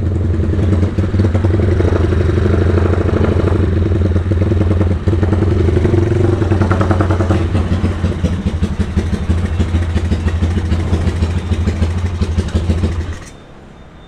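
Motorcycle engine and exhaust running steadily as the bike is ridden, a deep pulsing note with engine clatter over it; the engine sound stops about a second before the end.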